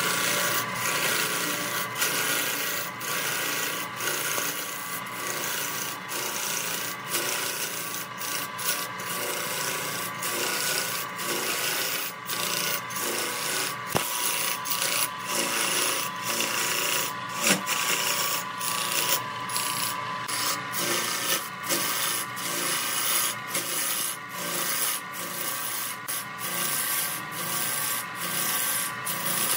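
Turning tool cutting into a large wooden blank spinning on a wood lathe: a continuous rough scraping of shavings being torn from the wood, with a faint steady hum underneath.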